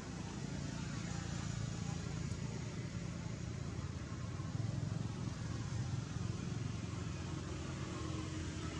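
Steady low rumble of background noise, engine-like, with no clear animal calls.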